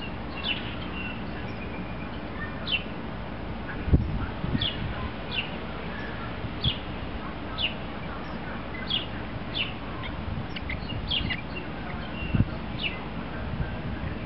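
A small bird calling repeatedly, short falling chirps about once a second. There is a knock about four seconds in and another near twelve seconds.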